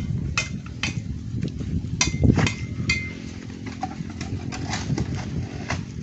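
Steel shovels scraping and clinking against a metal wheelbarrow tray and stony soil as workers shovel material, a few sharp strikes every second with one ringing clink about two seconds in, over a steady low rumble.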